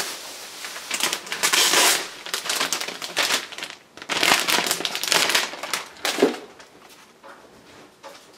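Packaging crinkling and rustling in several bursts as the tablet's keyboard dock is handled and unwrapped.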